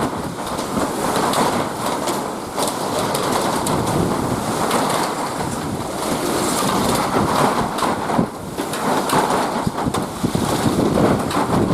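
Typhoon-force wind blowing in strong, surging gusts, with scattered short clattering knocks throughout.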